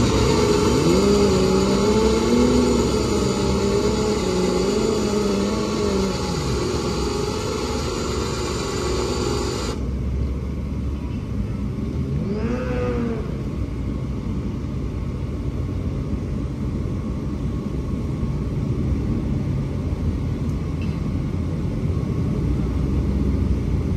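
Small electric winch, run off a Milwaukee tool battery, whining under load as it pulls a car up onto a trailer. Its pitch wavers with the load, and it cuts off suddenly about ten seconds in. A few seconds later it gives one short burst that rises and falls in pitch, over a steady low rumble.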